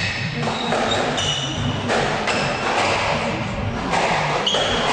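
Squash rally: the ball thudding off racket and walls, with short, high squeaks of court shoes on the wooden floor.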